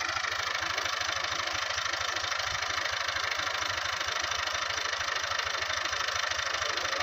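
New Holland farm tractor's diesel engine running steadily with an even beat.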